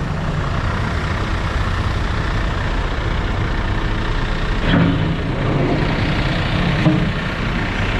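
Dump truck's diesel engine running steadily with a deep rumble, rising briefly for a couple of seconds about five seconds in.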